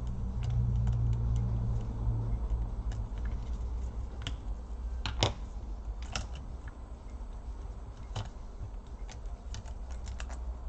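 Irregular small clicks and taps of hands working on a laptop's opened internals, with the sharpest click about five seconds in and a quick run of light ticks near the end, over a low steady hum.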